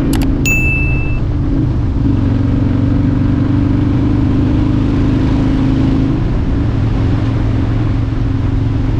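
Harley-Davidson touring motorcycle's V-twin engine running steadily under way, the pitch easing slightly now and then. A couple of sharp clicks and a short high beep come in the first second.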